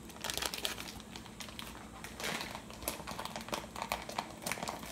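Clear plastic wrapping around a wax melt pan crinkling as it is handled, in a run of irregular crackles.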